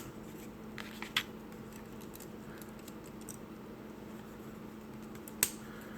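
A few faint clicks and taps of plastic model-kit parts being handled, the sharpest about five and a half seconds in, over a low steady hum.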